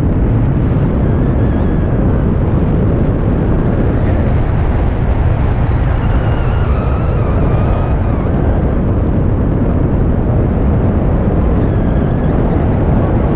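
Wind from a paraglider's flight rushing over the microphone: a steady, loud noise heaviest in the low end, with no let-up.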